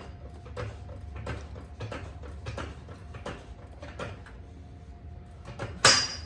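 Floor jack being pumped in steady strokes, a short knock about every two-thirds of a second, as it raises a car's front subframe into place; a loud metal clank near the end.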